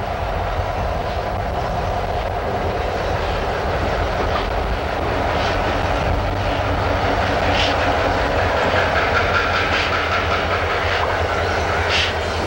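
Train hauled by ex-Chesapeake & Ohio 2-8-4 steam locomotive 2716 rolling along, its wheels clicking over the rail joints. A thin high tone joins about two-thirds of the way through.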